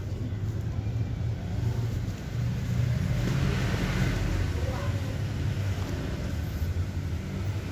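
Denim jeans being handled and turned over, rustling, over a steady low rumble. The rustle swells for about a second near the middle.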